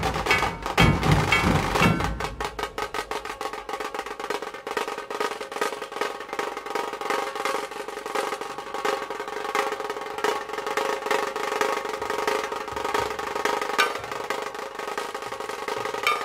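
Dhol-tasha ensemble drumming: a few heavy dhol strokes in the first two seconds, after which the low drums drop away and the tashas keep up a fast, continuous stick roll. Light low dhol beats come back briefly about twelve seconds in.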